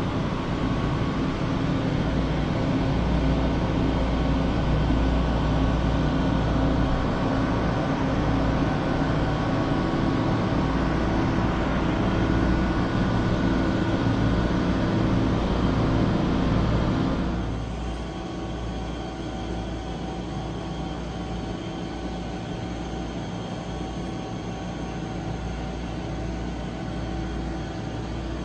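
Steady mechanical drone with a hum of several tones. It drops noticeably in level about 17 seconds in and then stays steady.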